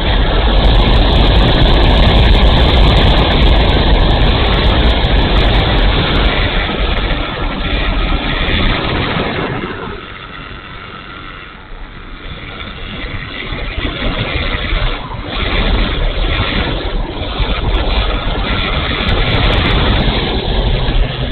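Airflow rushing over a wing-mounted camera on a flying ParkZone F4F Wildcat RC plane, mixed with its electric motor and propeller running. It is a loud, steady rush with a heavy low rumble that drops for a couple of seconds about ten seconds in, then builds again.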